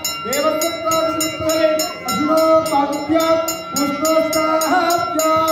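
A man chanting Sanskrit mantras in a drawn-out sung melody with long held notes. Behind the voice, a high ringing is struck in a steady rhythm about five times a second.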